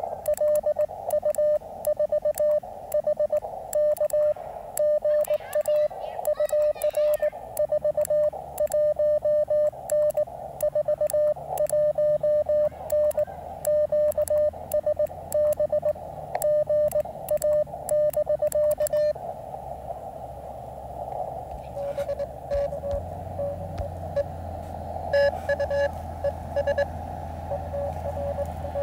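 Ham transceiver's Morse code (CW) sidetone, a steady tone near 600 Hz keyed on and off from a paddle. About two-thirds of the way in, the keying stops and the receiver's band noise takes over, with a fainter Morse signal coming back through it.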